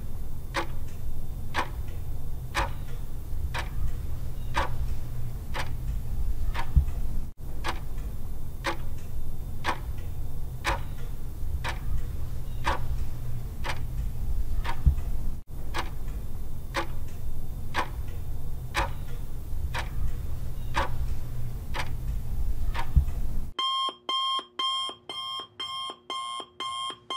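Countdown-timer sound effect: steady clock-like ticking over a low hum. A few seconds before the end it switches to a rapid, repeating alarm beep as the countdown nears zero.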